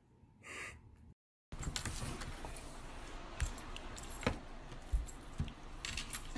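A small dog's metal collar tags jingling and rattling as it wriggles and rolls on its back on a table, with scattered clicks and a few soft bumps.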